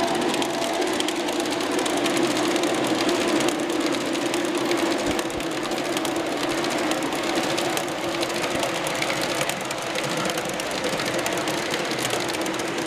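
G-scale model freight cars rolling past at speed on garden-railway track: a steady rattle and rumble of wheels on rails, with a dense run of fine clicks.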